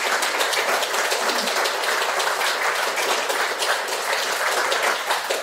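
Audience applauding: many hands clapping steadily, at a fairly even level throughout.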